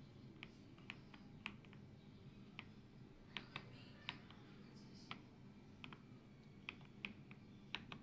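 Typing on an AULA F98 Pro mechanical keyboard with transparent PC keycaps: quiet, irregular keystrokes, about two a second.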